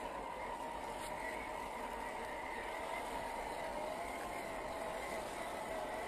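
1/10-scale RC crawler's 550-size brushed electric motor and gearbox whining as it drives, the pitch wavering up and down with the throttle as it climbs over dirt mounds.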